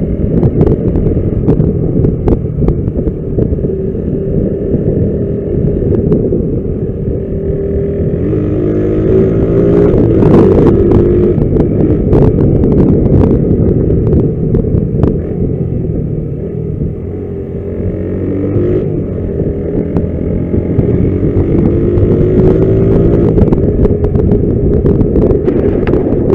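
Honda CG 125 Titan's single-cylinder engine running under way, rising in pitch as it accelerates about a third of the way in and again past the middle. It is heard through the camera's own microphone with the external mic removed, with wind noise.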